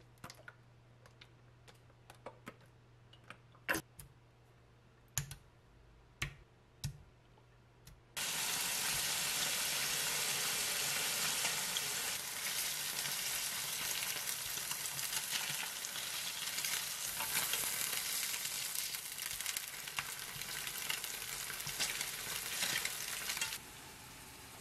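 A few light knocks and taps, then about eight seconds in, slices of tofu sizzling as they fry in oil in a frying pan: a steady, dense sizzle that stops abruptly near the end.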